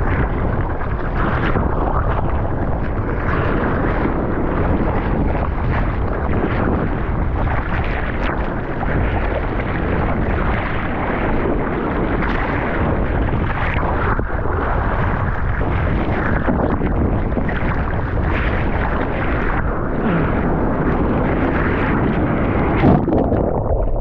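Turbulent whitewater rushing and splashing around a surfboard-mounted camera as the board is paddled out through broken waves, with wind buffeting the microphone. About a second before the end there is a sharp hit, and the sound turns duller as the board goes under the water.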